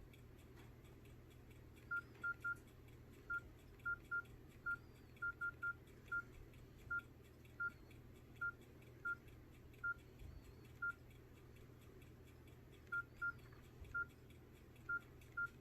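Nokia 6682 keypad tones: short, high beeps all at one pitch, about twenty of them at uneven intervals as the keys are pressed to scroll through the phone's menus.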